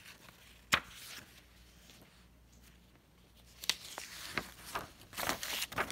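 Paper rustling and crackling as the pages of an old book are handled and turned, mostly in the second half. There is a single sharp click under a second in.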